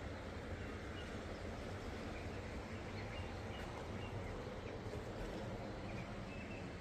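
River flowing steadily, a constant rush of water, with a few faint bird chirps over it.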